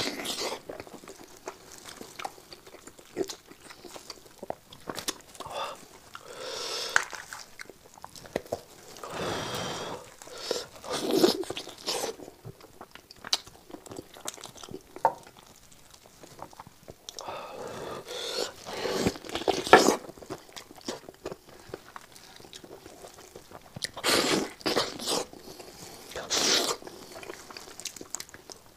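Close-miked eating of spicy lamb hooves: chewing and biting at the skin and cartilage, with crunching. It comes in irregular bouts full of small clicks.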